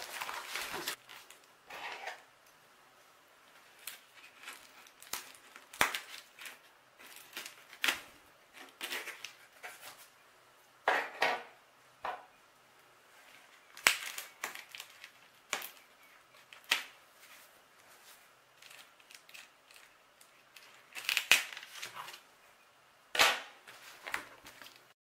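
Hands handling a box wrapped in plastic packing tape inside a torn cardboard carton: irregular sharp crackles and snaps of tape and cardboard, about a dozen spread out with quiet gaps between them.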